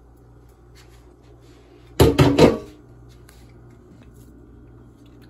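A plastic dough scraper pressing and patting a lump of mung kavum dough flat on a plastic-wrapped board, with a short cluster of knocks and scrapes about two seconds in, over a faint low hum.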